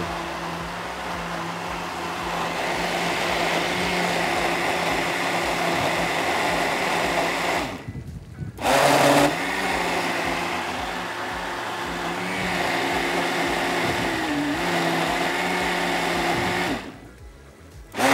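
Countertop blender motor running steadily as it purées a thick fruit-and-milk shake. It cuts out briefly about eight seconds in, restarts with a short louder surge, and stops again near the end.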